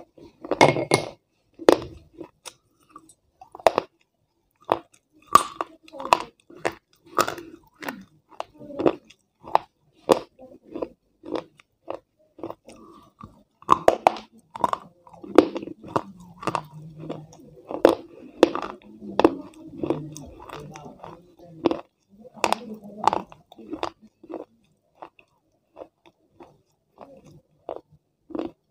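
Close-miked crunching and chewing of a hard, brittle piece of baked clay. Sharp, irregular crunches come about one to two a second, thickest in the middle, with softer chewing in between.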